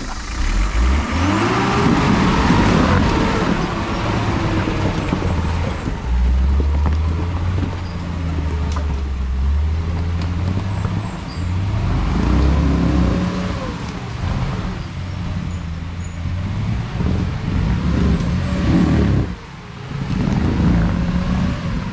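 Off-road 4x4's engine revving up and down under load, the revs rising and falling repeatedly as it works to climb a steep rocky, rutted step.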